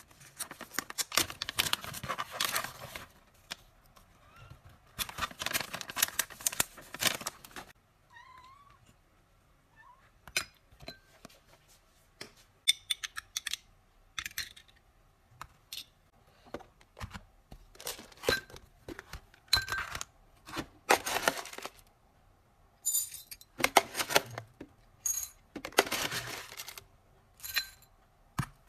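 Packaging crinkling and rustling in long bursts, with scattered clicks and taps of handling. A British Shorthair cat gives a short, faint rising meow about eight seconds in.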